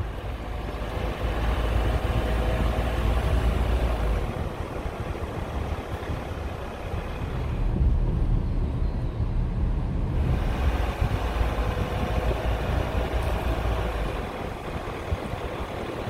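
Car driving along a paved road: steady low engine and tyre rumble with road noise. About eight seconds in, the higher hiss drops away for a couple of seconds, as heard from inside the cabin.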